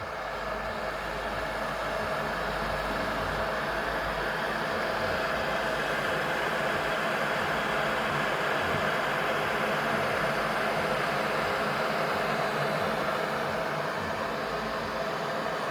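Electric kettle heating water: a steady hiss and rumble, growing a little louder over the first couple of seconds, then holding steady as the water works towards the boil.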